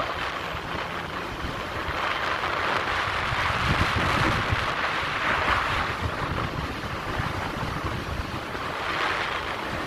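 Wind rushing over the microphone of a camera riding on a moving motorbike, a steady rushing haze that swells and eases, with a low road and engine rumble beneath.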